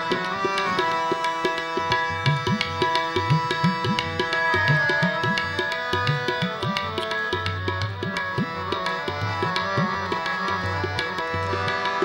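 Kirtan accompaniment between sung lines: tabla playing a busy rhythm, with sliding bass strokes on the bayan, over steady held harmonium notes.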